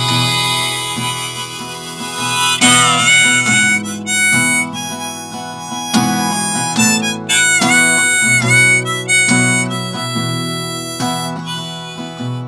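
Harmonica solo over strummed acoustic guitar in a folk-pop song, with some notes bent down and back up.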